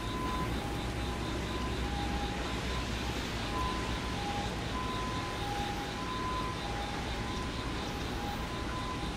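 Steady low rumble of an electric train at a station platform. Two electronic tones sound on and off as short notes throughout.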